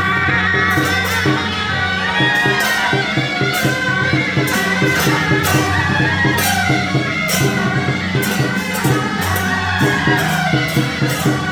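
Loud music with a steady beat: sharp percussion strikes, tambourine-like, over sustained low tones.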